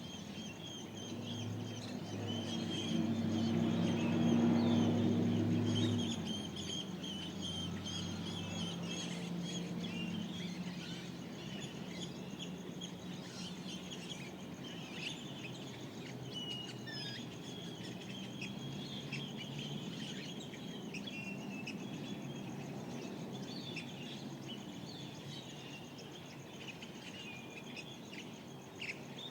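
Dawn chorus of Mojave Desert birds, many small birds chirping continuously. A low, steady hum swells in the first seconds, is loudest around four to five seconds in, and fades out at about six seconds.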